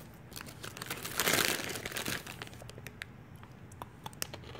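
A treat bag crinkling and rustling, loudest about a second in, with a few light clicks scattered through.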